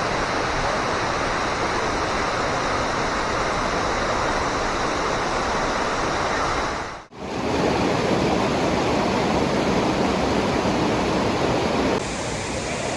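Steady rush of a waterfall's falling water. It drops out briefly about seven seconds in and comes back fuller and deeper, then steps a little quieter near the end.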